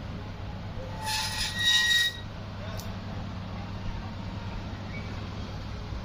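Caged parakeet giving a single screech about a second long, over a steady low hum.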